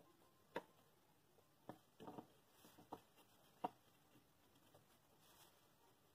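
Faint wooden knocks and taps as notched pine boards are slotted together and set down on a wooden workbench: about five separate knocks, including a brief quick rattle of taps near the middle, all within the first four seconds.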